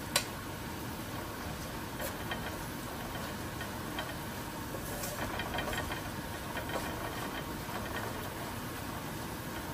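Curry mixture frying in a pot: a steady sizzle, with a sharp click just after the start and a few faint clicks later.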